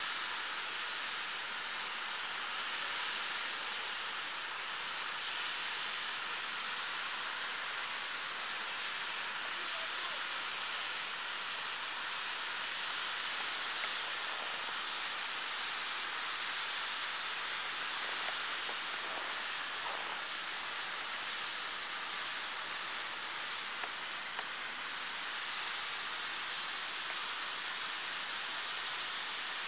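Snow gun spraying water and compressed air into a plume of snow: a steady, high hiss.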